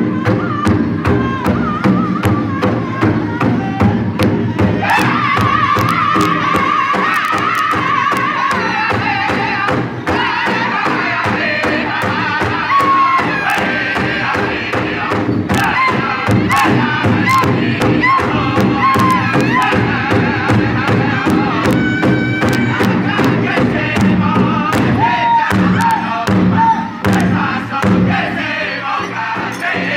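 Powwow drum group singing together while beating one large bass drum in unison with beaters, in a steady even beat. The voices come in strongly about five seconds in, high at first and stepping down in pitch.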